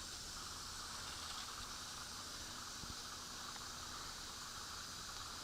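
Steady faint hiss of background noise, even throughout with no distinct events.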